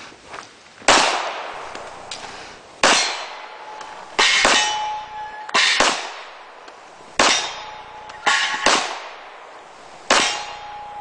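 Handgun shots fired at steel targets, about ten in all with one to two seconds between most and a few quick doubles, several followed by the ringing clang of a struck steel plate.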